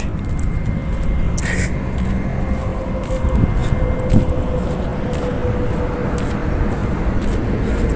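Steady low rumbling outdoor noise, with a faint steady hum from about a second in.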